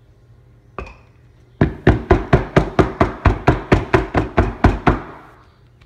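Wooden soap mold filled with crumbly hot process soap being knocked down on the counter: one knock, then about fifteen quick knocks at about four a second, settling the soap into the mold.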